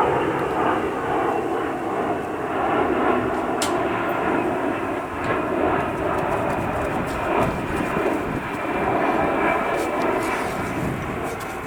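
Steady drone of an aircraft engine passing overhead, swelling and easing over several seconds. A single light metallic clink comes about three and a half seconds in.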